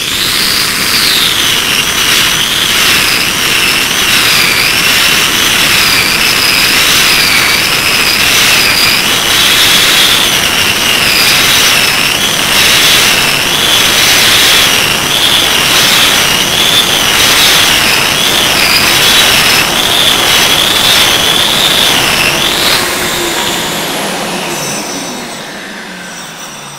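Hand-held concrete milling machine (Betonfräse) grinding adhesive residue off a cement screed floor down to bare screed, its high motor whine wavering in pitch as it is worked over the floor. About 23 seconds in it is switched off and winds down, the whine falling away.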